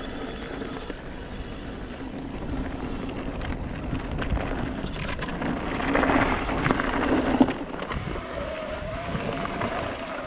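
Trail-riding noise from a Yeti 160e electric mountain bike on a dirt forest singletrack: tyres rolling over dirt and wind on the microphone, over a faint steady hum. The bike rattles and knocks loudest from about six to seven and a half seconds in.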